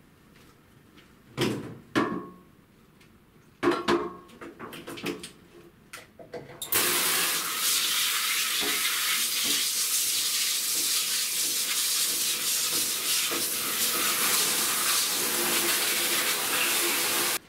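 A handheld shower head on its strongest setting sprays a horizontal slatted blind, a steady loud hiss of water that starts about seven seconds in and cuts off abruptly near the end. A few short knocks and clatters come before it.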